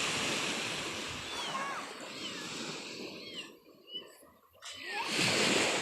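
Surf washing onto the beach, fading away about halfway through and surging back near the end, with a few short high chirping calls over it.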